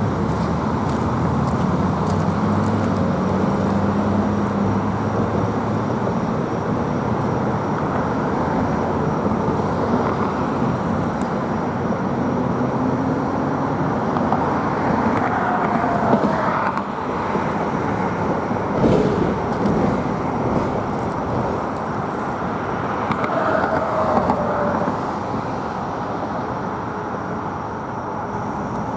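Road traffic: a steady wash of cars and tyres, with vehicles passing by now and then.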